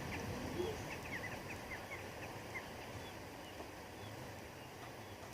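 Small bird chirping faintly: a quick run of about eight short, high notes starting about a second in, over steady low outdoor noise.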